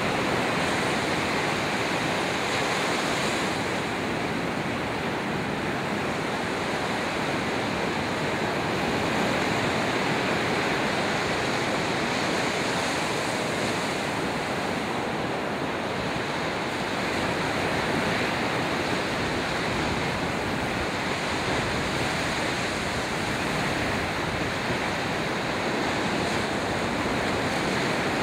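Ocean surf: waves breaking and washing up a sandy beach in a steady rush that swells and eases slightly.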